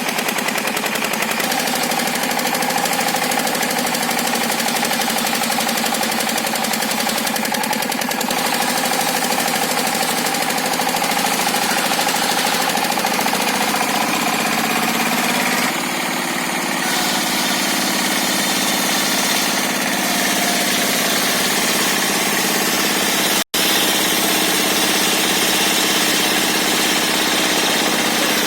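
Circular sawmill running under load as its blade cuts through hard, fibrous timber: a dense, steady machine noise with tones that slowly drift in pitch. The blade has not been filed, so the machine labours through the wood. The sound cuts out for an instant about 23 seconds in.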